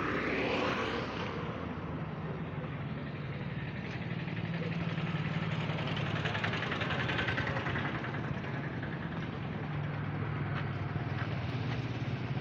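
A motor vehicle's engine running steadily, with a low hum that swells a little about six seconds in, over outdoor street noise.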